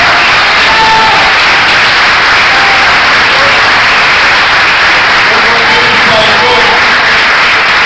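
Congregation applauding, steady clapping filling the hall, with scattered voices calling out over it.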